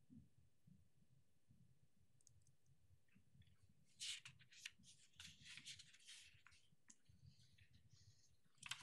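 Near silence: room tone, broken for a couple of seconds around the middle by faint rustling and clicking, like papers or small objects handled on a table near a microphone.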